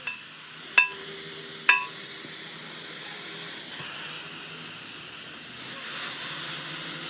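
Steady high hiss, with two sharp metal strikes about a second apart near the start, each leaving a brief ring.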